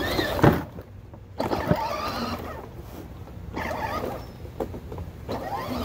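Battery-powered ride-on toy car's electric drive motors whining as it rolls across the grass, with a couple of sharp knocks from the toy, about half a second in and again near the two-second mark.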